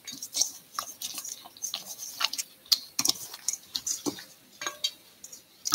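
Gloved hands kneading marinated quail in a stainless steel bowl, giving irregular light clicks and taps, several a second, as the meat and glove work against the bowl.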